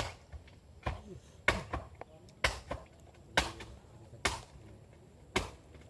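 A series of sharp knocks, about one a second, fairly regular.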